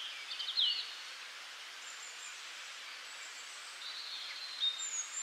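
Small birds chirping and twittering quietly over a steady outdoor hiss. There are a few calls in the first second, a lull, then more chirps from about four seconds in.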